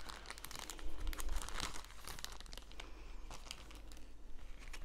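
Packaging being handled and opened, crinkling and crackling. Loudest in the first two seconds, then quieter, sparser rustles.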